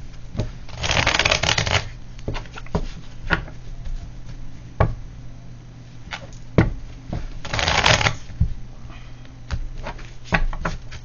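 Tarot cards being shuffled by hand: two short bursts of riffling, about a second in and again some seven seconds later, with scattered light taps and flicks of cards in between.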